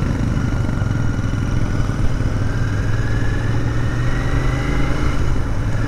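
Royal Enfield motorcycle engine running steadily, with a faint higher tone rising slowly in pitch from about two seconds in.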